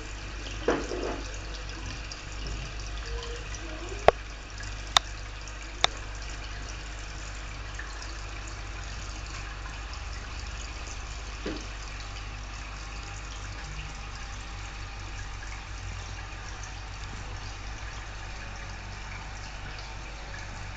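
Aquarium airstone bubbling steadily, with a low hum underneath. Three sharp clicks come about 4 to 6 seconds in.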